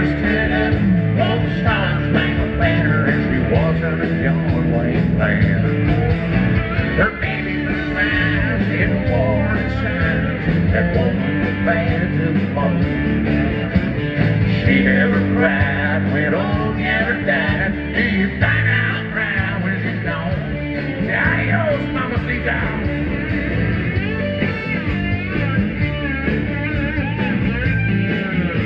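Live country-rock band playing an instrumental break between verses, with an electric lead guitar bending notes over acoustic guitar strumming, bass and drums.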